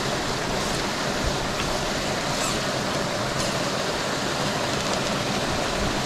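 Mountain creek rushing steadily over rocks and a small cascade, with a few faint ticks.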